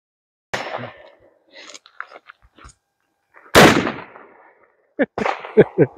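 A single 12-gauge pump shotgun shot about three and a half seconds in, the loudest sound, with a short echoing decay. It follows a quieter sharp report about half a second in and is followed by a quick run of sharp knocks near the end.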